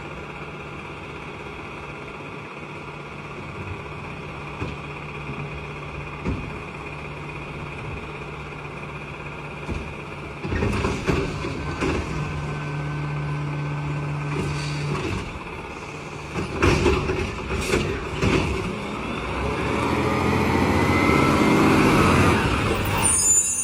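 Garbage truck engine running steadily, then working harder with louder mechanical noise. Several sharp bangs come about two-thirds of the way through, and the noise builds to its loudest near the end.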